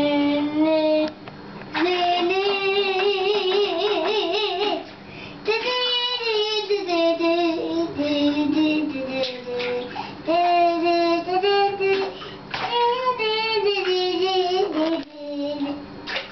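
A young boy singing to himself in long, wavering held notes, a string of phrases with short breaks between them.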